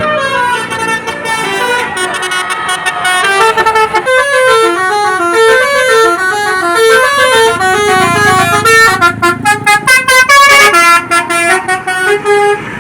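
Indonesian bus 'telolet' melody horn playing a fast tune: loud horn notes that step up and down several times a second, stronger from about four seconds in.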